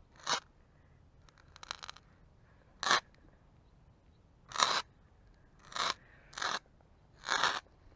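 A pocket lighter struck about seven times in a row, each strike a short scraping hiss, separated by pauses of a second or so: repeated attempts to get it to light.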